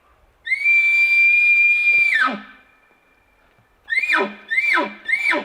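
Bull elk bugling: one long high note held for nearly two seconds that drops away at its end. About four seconds in it is followed by three quick falling chuckles.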